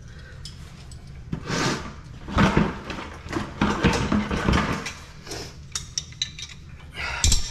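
Irregular knocks, clatter and scraping of hard parts and tools being handled during plumbing work at a kitchen sink, busiest in the middle and ending with a few sharp clicks.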